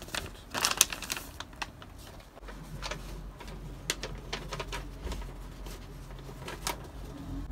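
Sheets of paper rustling and crackling as they are handled and looked over, with a cluster of crackles in the first second and scattered single ones after. A low steady hum comes in about two and a half seconds in.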